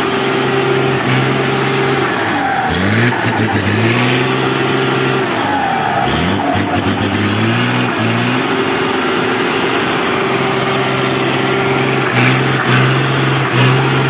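Mack truck's diesel engine pulling hard under load as the truck claws up a muddy grade in all-wheel drive. The revs dip and climb back up twice, about three and six seconds in, then hold steady and shift again near the end.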